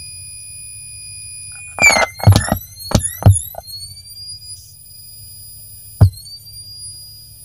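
Home-built power amplifier driving a bare woofer: a low hum and a steady high whine, then a run of loud pops and crackles as the phone's audio jack is handled, the whine sliding down in pitch. A single sharp pop about six seconds in.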